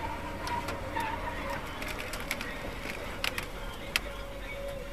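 Steady engine and road rumble heard inside a moving vehicle's cab, with a faint steady tone and a handful of sharp clicks or rattles, the loudest near the end.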